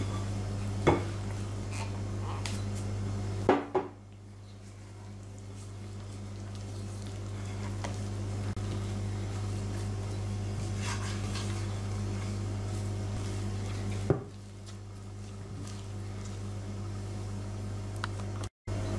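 Wooden spoon stirring and scraping thick yeast dough around a glass mixing bowl, with a few sharp knocks of the spoon against the bowl.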